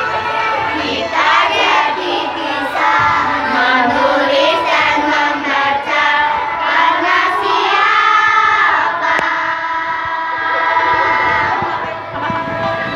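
Women and children singing together over a backing music track.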